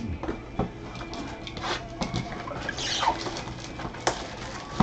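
Clear plastic wrapping crinkling as a sealed card box is handled, with scattered rustles and a few sharp taps, the loudest near the end.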